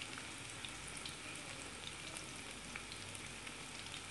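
Gram-flour-battered potato pakoras deep-frying in hot oil: a steady sizzle with many small crackles and pops.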